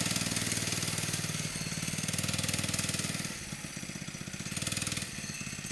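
Harbor Freight 79cc 2.5 hp single-cylinder engine on a homemade go-kart, governor removed, running under way with its pitch and loudness rising and falling as it is driven, dipping a little about three seconds in.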